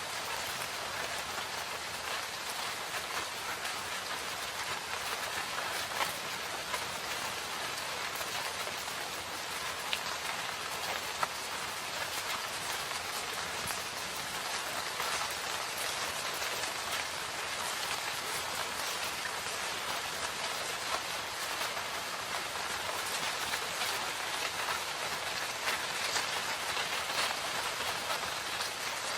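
Steady rain falling in a forest: an even hiss with scattered sharper drop hits.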